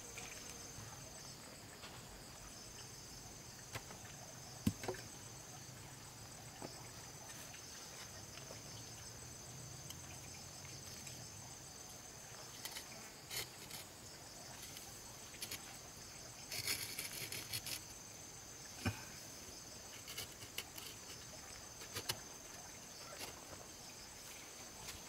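Steady high-pitched insect chorus, crickets trilling, with occasional sharp knocks and a short burst of clatter about seventeen seconds in.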